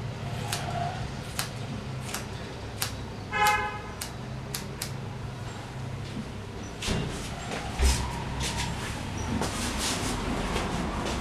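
Hair-cutting scissors snipping through wet hair in a series of short sharp clicks over a low steady hum. A brief vehicle horn toots about three and a half seconds in, and there is a dull thump near eight seconds.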